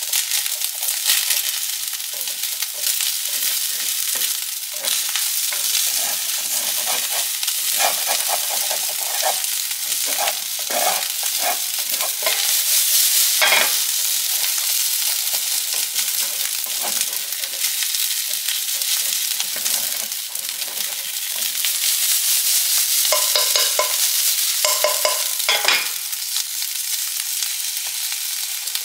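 Kimchi fried rice sizzling in a frying pan while it is stirred and scraped with a slotted plastic spatula, a steady hiss under irregular scraping strokes. Two sharper knocks of the spatula against the pan come about halfway through and again near the end.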